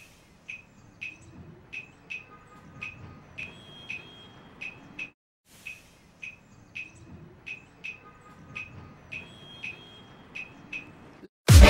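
Short, high chirps at uneven spacing, about two a second, over a faint hiss; the same few-second stretch plays twice in a loop. Loud music cuts in at the very end.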